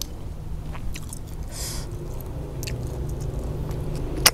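Close-miked eating sounds as a person sucks freshwater snails out of their shells: small mouth clicks, a short slurp, and one sharp click near the end followed by another slurp.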